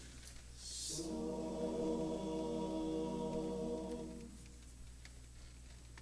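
Barbershop chorus singing a cappella, holding one steady chord for about three seconds before it fades away.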